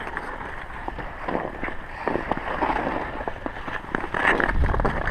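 Ice skate blades scraping and cutting on rough outdoor ice in an uneven run of strokes, with a low wind rumble on the microphone near the end.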